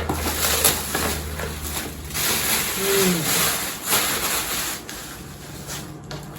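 Cardboard packaging being handled and pulled open: rustling and scraping with scattered clicks, busiest in the middle and dying down near the end.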